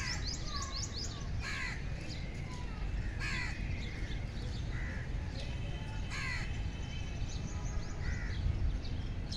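Crows cawing repeatedly, harsh calls every couple of seconds, with smaller birds chirping between them over a steady low rumble.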